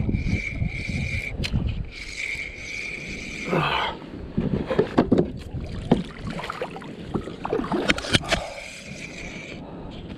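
Knocks and scrapes on a fishing kayak as the angler moves about while playing a fish, with several sharp knocks between about four and eight seconds in. A high, steady whine sounds through the first third and again near the end.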